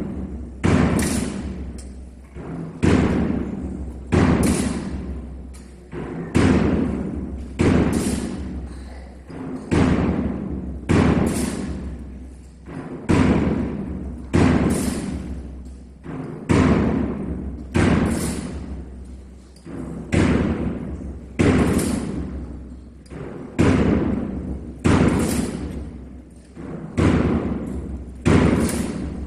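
A slow, steady marching beat of heavy strikes, echoing in a large reverberant church and coming in pairs about every three and a half seconds, marking the pace of a Roman-soldier procession.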